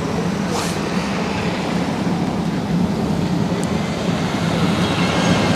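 Steady low rumble and hiss of background noise on a live microphone, with a brief whoosh about half a second in.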